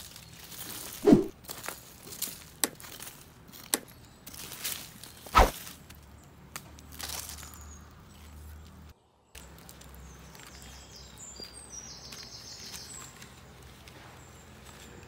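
Outdoor ambience: a few sharp knocks and crunches in the first half, the loudest about a second in, then birds chirping faintly.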